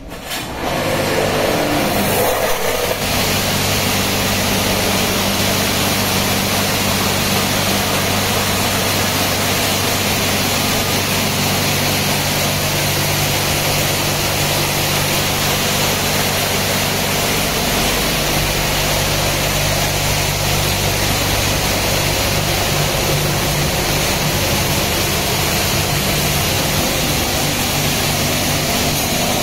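Touchless automatic car wash blasting high-pressure water jets onto a car: a steady, loud hiss of spray over the low hum of the pump motor. It kicks in suddenly within the first second.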